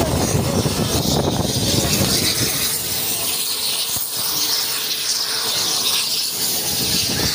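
Steady loud hiss and rumble of Mi-17 helicopter turbines running on the ground.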